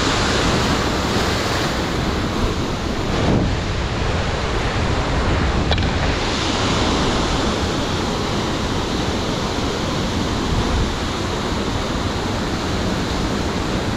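Sea surf washing against coastal rocks, a steady rushing, with wind buffeting the microphone.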